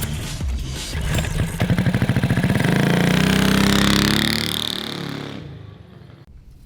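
An engine revs up, its pitch climbing over a couple of seconds, then fades away.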